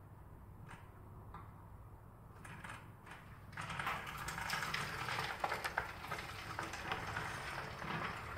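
Water rushing through a breaching sand dam on a tabletop model, with a few faint ticks at first, then a loud rush full of small crackles from about three and a half seconds in as the dam gives way. A low steady hum runs underneath.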